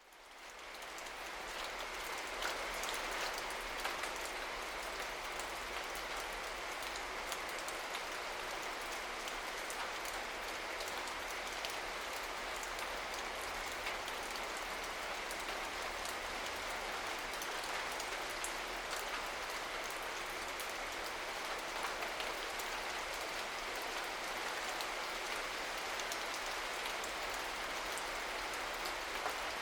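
Steady rain falling, a dense even hiss of drops with many small individual patters on hard surfaces. It fades in over the first second or two and then holds steady.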